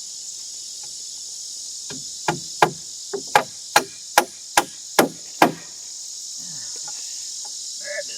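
A hammer striking the wooden shed-floor framing about nine times in quick succession, roughly three blows a second, a little over two seconds in. A steady high drone of insects runs underneath.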